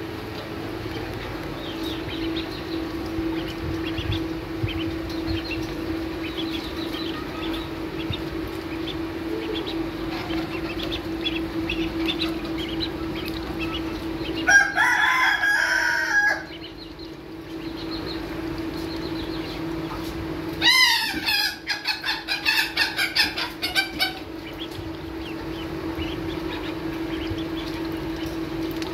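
Ducklings peeping faintly while they feed, over a steady low hum. About halfway through, a much louder bird gives one call of about two seconds. A few seconds later it gives a run of loud, quickly repeated calls.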